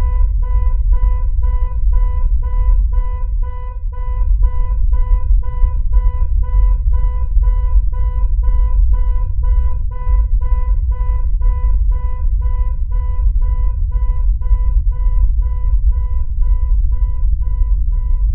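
Electronic soundtrack drone: a deep, loud rumble under a steady synthesizer tone that pulses about two and a half times a second.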